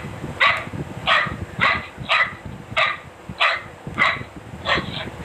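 Dachshund barking in a steady run of about nine short barks, a little under two a second.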